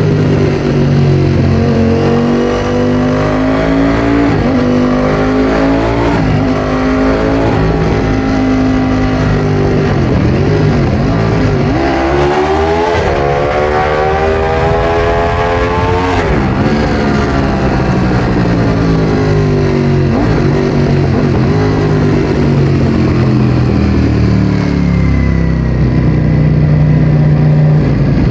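Ducati Streetfighter V4S's 1103 cc Desmosedici Stradale V4 through an Akrapovic exhaust. The revs climb in several short steps, then make one long climb about halfway through before dropping away, and the engine settles to a low steady note near the end.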